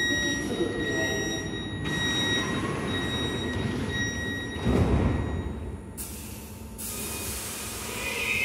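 Munich U-Bahn C2 train at the platform sounding a repeating electronic door-closing beep as its doors shut. A heavy thump follows about five seconds in, then a hiss. Near the end the drive begins to whine as the train starts to pull away.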